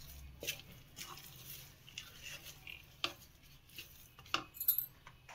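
Wooden spatula stirring a thick sesame-jaggery mixture in a steel kadhai, with irregular light knocks and scrapes of wood against the metal pan.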